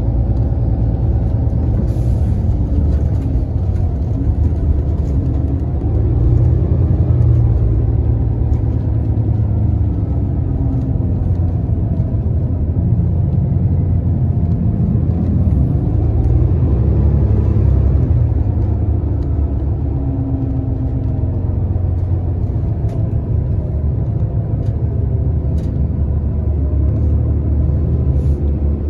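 Cabin rumble of a 2018 New Flyer XDE60 diesel-electric hybrid articulated bus under way, a steady low drone with a faint whine that rises and falls; it swells a little twice.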